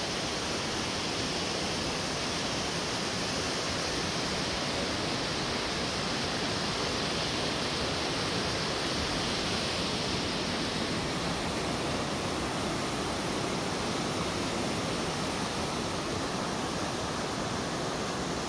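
Steady rush of a shallow, rocky river's white water, an even hiss that does not change.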